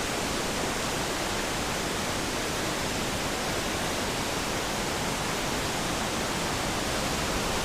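Steady, even rush of a fast, turbulent mountain river.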